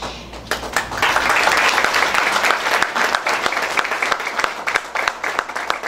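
Audience applause, many people clapping, starting about half a second in, swelling quickly and thinning near the end.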